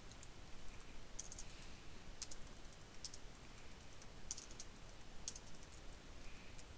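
Computer keyboard being typed on: faint keystroke clicks, singly and in small clusters about a second apart.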